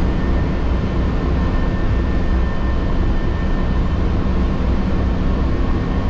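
Steady rumble of a moving transit bus heard from inside the cabin: engine and road noise, with a faint steady hum over it.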